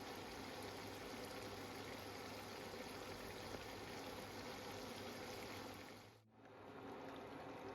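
Steady sizzling and bubbling of mutton cooking in oil in a karahi. The sound drops out briefly about six seconds in and starts again.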